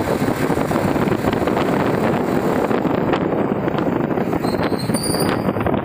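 Steady rush of wind on the microphone mixed with tyre and road noise from riding along on a motorbike.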